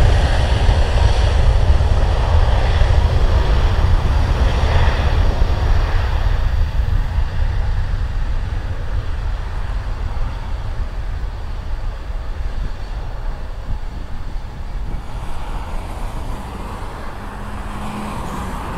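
Jet engines of a Delta narrow-body airliner at takeoff thrust during its takeoff roll: a deep, steady rumble that slowly fades as the plane moves away down the runway.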